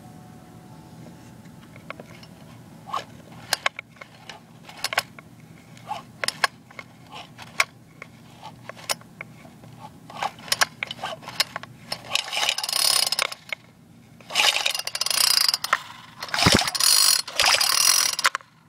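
Irregular sharp clicks and ratcheting from the exposed clutch and flywheel parts of a small four-stroke engine that is not running. Near the end come three longer bursts of rasping mechanical noise.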